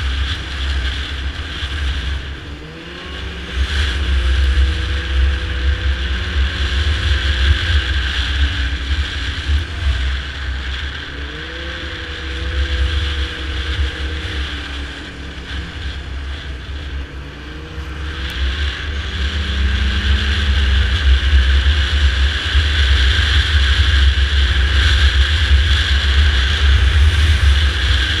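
Yamaha snowmobile engine running while riding along a trail, its pitch rising and falling with the throttle. It eases off briefly near the start and again around the middle, then builds up again, over a heavy low rumble throughout.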